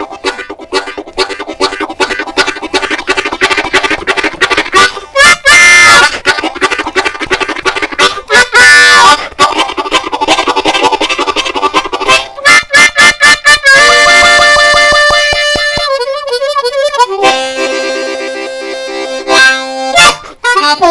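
Diatonic harmonica imitating a train: a fast chugging rhythm of quick alternating draws and blows on the low holes, broken twice by short wailing whistle chords. Near the end it changes to long held chords with a wavering warble.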